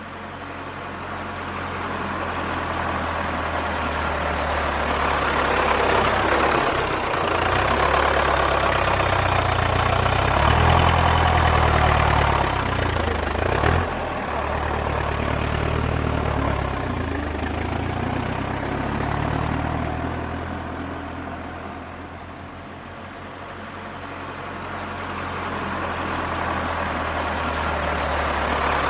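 Diesel farm tractor engine running with a low, steady throb that grows louder over the first dozen seconds. It eases to its quietest about two-thirds of the way through, then builds again.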